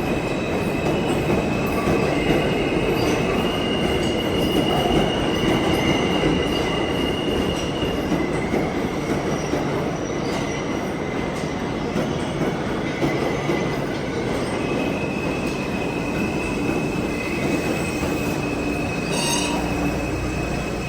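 New York City subway train running through a station: a continuous steady rumble with high-pitched steel wheel squeal that fades in and out.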